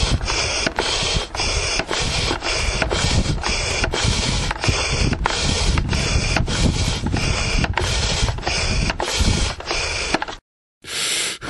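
Steady rushing of air, with a regular click about two to three times a second. It cuts out briefly near the end and then starts again. It is a backyard sound to do with air, not breathing.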